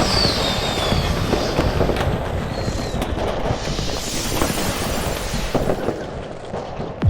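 Fireworks sound effect: dense crackling and popping with a falling whistle about three seconds in, thinning out near the end.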